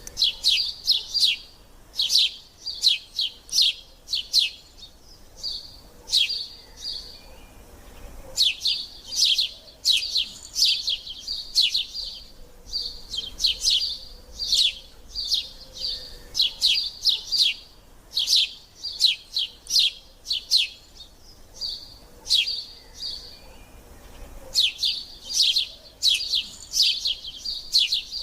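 Nestling birds begging for food: bouts of rapid, high chirps, several a second, each bout lasting a few seconds with short pauses between.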